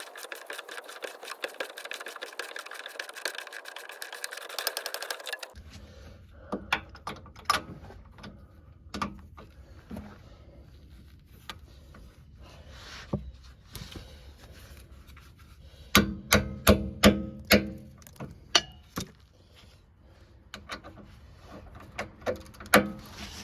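Hand tools working on metal: rapid clicking for the first five seconds or so, then, after a cut, scattered knocks and clanks, with a quick run of sharp metal strikes a little past the middle.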